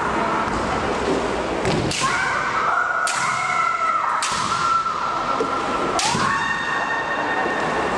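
Two female kendo competitors shouting long, held kiai that rise sharply at the start, broken by about four sharp impacts of bamboo shinai strikes and stamping feet on a wooden floor.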